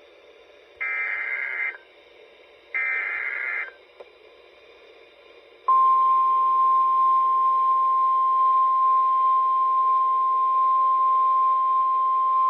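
EAS/SAME alert header: two one-second screechy data bursts about a second apart. About two seconds later comes a single steady alert tone at one pitch near 1 kHz that holds on. Together they announce a National Weather Service severe thunderstorm warning over a radio channel with a faint hiss.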